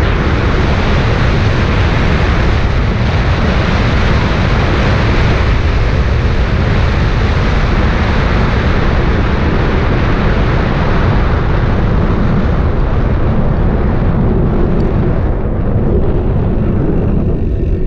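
Loud wind rushing over the microphone of a bike-mounted action camera on a road bike descending at 60 to 70 km/h, a steady noise with no engine tone. It eases and thins near the end as the bike slows.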